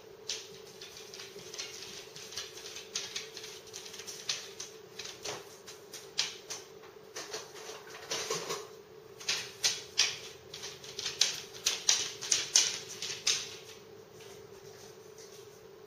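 Dog's claws clicking and scrabbling on the hard kitchen floor and against the counter as it moves about and rears up. It is a fast run of sharp ticks that gets thicker and louder in the last few seconds, then stops.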